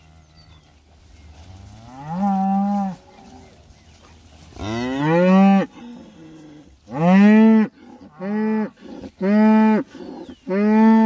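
Beef cattle mooing, six calls in all: the first fainter, and the last four short and coming quickly one after another.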